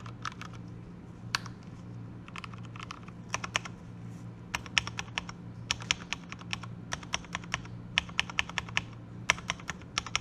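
Typing on a fully lubricated mechanical keyboard with Cherry brown tactile switches on light 35 g springs: irregular runs of soft keystroke clicks with short pauses between them.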